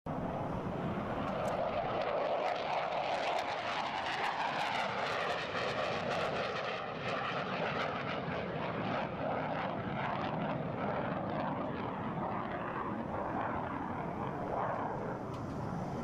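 F-22 Raptor fighters' jet engines running on the ground: a continuous rushing jet noise whose tone slowly wavers up and down.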